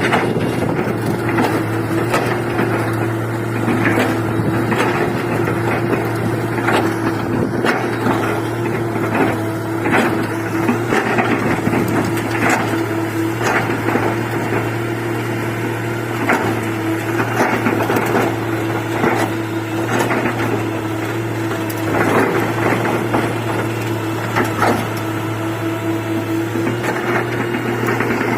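L&T Komatsu excavator's diesel engine running steadily, with frequent knocks and clatter over it.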